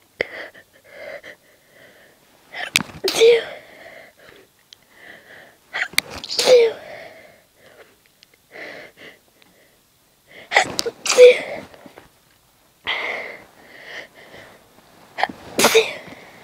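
A woman sneezing about four times, each sneeze stifled to keep it quiet, with short breaths and sniffs between them.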